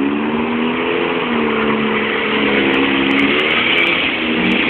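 Jeep engine revving up and down, its pitch rising and falling several times, under a steady rushing noise.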